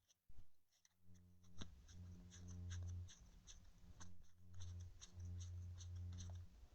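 Faint rustling and small clicks of trading cards being handled and sorted, with a low hum underneath.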